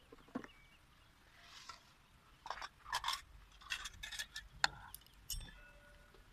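Light tabletop clatter: a spoon and glass jars clicking and clinking as they are handled, with a knife sawing through a loaf of bread on a cutting board. The clinks come in a quick cluster in the middle.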